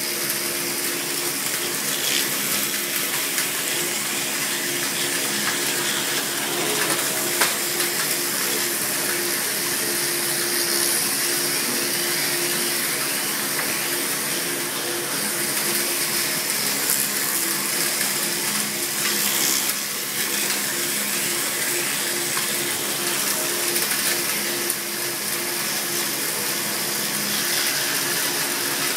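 Round-stick machine running, its rotary cutter head turning square wooden blanks into round shovel and broom handles: a steady rushing whir over a constant hum, with a sharp click about seven seconds in.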